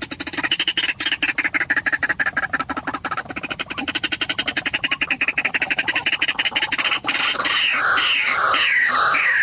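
White-breasted waterhen (ruak-ruak) calling: a fast, rattling run of croaks that falls in pitch, then holds steady, and about seven seconds in turns into repeated downward-sliding notes about twice a second. This is the call used to lure the bird to the trap.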